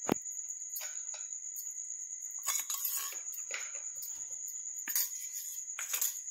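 Metal spoon scraping and dabbing across a bread pizza base in a pan as tomato chutney is spread, with a sharp tap of the spoon near the start and scratchy strokes later on. A steady high-pitched whine sounds underneath.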